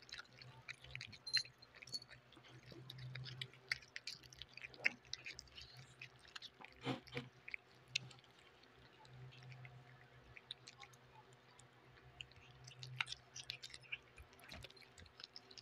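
Three cats chewing soft pieces of chicken and chicken liver adobo close to a microphone: a continual run of small, irregular wet clicks and smacks.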